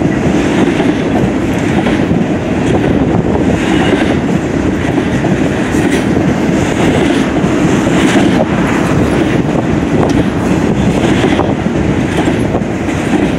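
Union Pacific double-stack intermodal container cars rolling past, a steady loud rumble of steel wheels on rail, with scattered clacks from the wheels.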